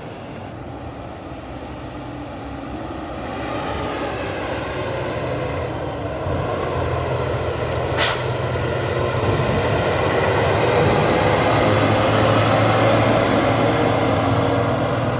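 Heavy dump truck engine running under load and growing louder as the truck approaches, its note rising slowly. There is a single brief sharp sound about eight seconds in.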